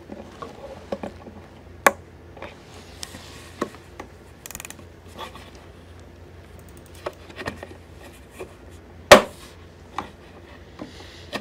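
Blum 110-degree straight-arm clip-top soft-close hinge worked by hand: scattered small metallic clicks and rubbing as its soft-close is switched off and the hinge is pushed shut, with one sharp click about nine seconds in.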